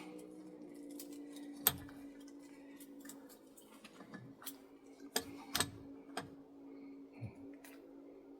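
Scattered sharp metallic clicks and ticks as copper windings are pried and pulled out of a scrapped electric motor, the loudest about a second and a half in and a close pair a little past the middle, over a steady low hum.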